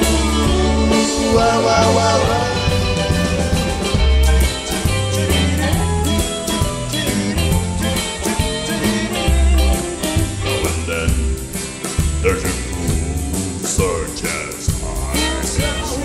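Live rock 'n' roll band playing an instrumental passage: lead electric guitar over a steady drum beat and bass.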